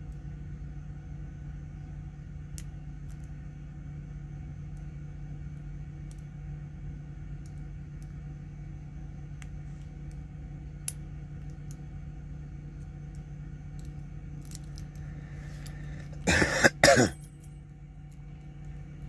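Faint scattered ticks of a lock pick and tension wrench working the pins of a brass padlock over a steady low hum. About sixteen seconds in, a person coughs loudly, twice.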